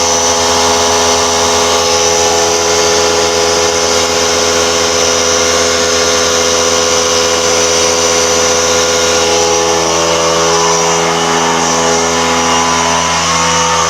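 Handheld electric rotary tool running steadily at one constant high speed, a loud continuous whine.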